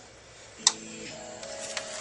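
A sharp plastic click about two-thirds of a second in, then a few lighter clicks near the end, as a small flathead screwdriver works at the Xbox 360 case's plastic tabs. Faint background music with held notes runs underneath.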